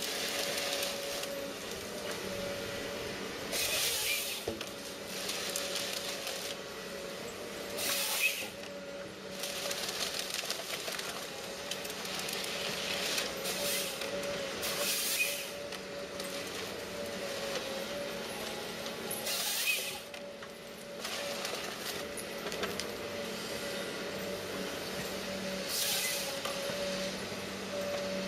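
Machinery running with a steady whine, broken every few seconds by short bursts of hissing.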